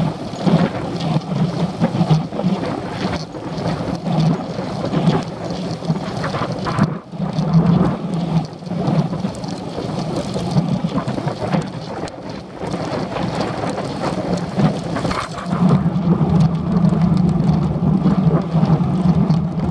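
Wind rushing over the microphone of a handlebar-mounted camera on a moving bicycle: a steady rushing noise with a low rumble. It drops off sharply for a moment about seven seconds in.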